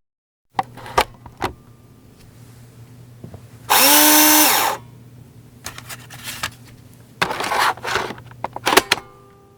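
Computer disk drive working: scattered clicks, then a loud whirring buzz about a second long whose pitch rises, holds and falls, then more clicks and short grinding bursts over a steady low hum.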